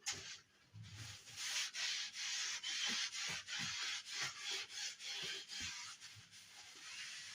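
Sandpaper rubbed back and forth over a surface by hand, in quick strokes at about two to three a second, growing weaker near the end.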